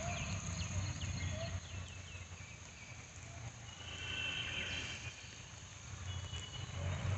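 A low, steady rumble of rushing water, with a bird calling over it: a quick run of short descending whistled notes in the first second and a half, then more whistled notes about four seconds in.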